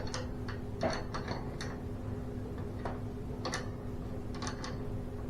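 Irregular metallic clicks and ticks of a wrench working a stubborn nut on garage door torsion spring hardware, over a steady low hum.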